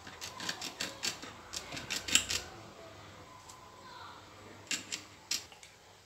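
Table knife cutting ginger on a ceramic plate, the blade clicking and scraping against the plate in a quick, irregular run for the first two seconds or so, with a few more clicks near the end.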